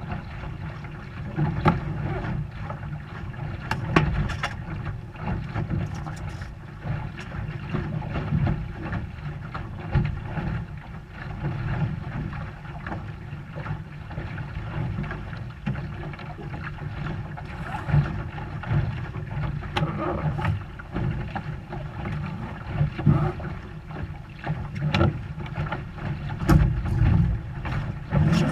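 Sailboat under way heard from its cockpit: steady wind rumble on the microphone with water noise against the hull, broken by occasional sharp knocks from the boat's gear.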